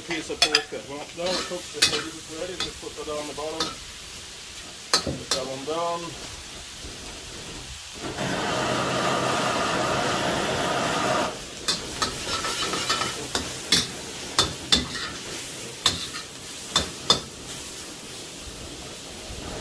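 Pork and onions sizzling in a wok over a gas wok burner, stirred with a metal spatula: sharp clanks and scrapes of the spatula against the wok. About eight seconds in, a loud steady hiss comes up for about three seconds and then cuts off.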